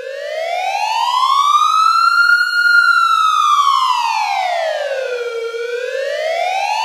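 A wailing siren. Its pitch rises slowly for about two and a half seconds, falls slowly back down over the next three, then starts climbing again near the end.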